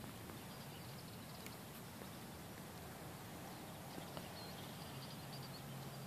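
Faint outdoor field ambience: a steady hiss with a few faint, distant bird chirps, and a faint low hum coming in near the end.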